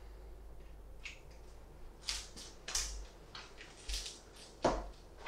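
A string of short rustles, scrapes and clicks from small parts being handled with gloved hands, with one sharper knock near the end.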